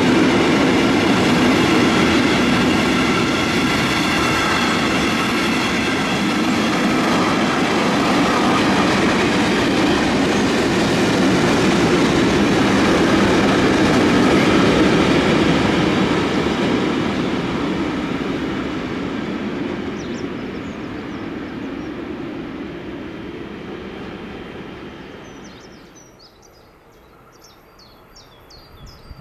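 Long freight train of container and tank-container wagons rolling past, a loud steady rumble of wheels on rail that fades away from about halfway through. Near the end it drops off sharply and faint bird chirps are heard.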